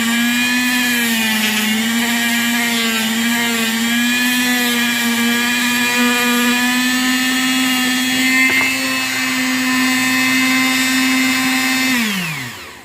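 Variable-speed rotary tool with a soft cutting wheel running at a low speed setting and cutting, a steady whine that wavers a little in pitch as it bears in. Near the end it is switched off and spins down, its pitch falling away.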